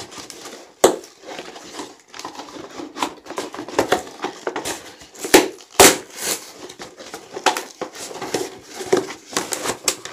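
Cardboard shipping box being torn open by hand: irregular tearing, crinkling and rustling of cardboard and packing tape, with a few sharper knocks about a second in and near six seconds.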